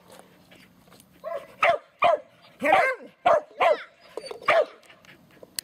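A dog barking: a quick run of about eight short, high-pitched barks starting about a second in.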